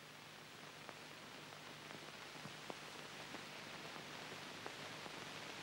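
Steady hiss of an old film soundtrack, slowly growing louder, with a faint low hum and scattered faint clicks and crackles.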